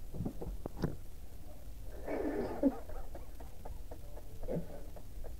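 Muffled, stifled laughter and low voices, with a few soft sharp clicks in the first second.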